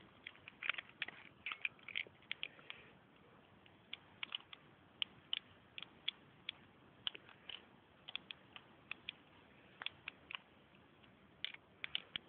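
Faint, irregular sharp clicks and ticks, sometimes several close together and sometimes a second or more apart, over a low steady hiss.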